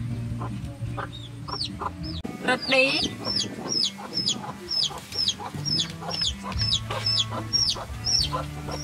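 Chickens clucking, with a steady run of short, high, falling peeps about twice a second starting about a second and a half in.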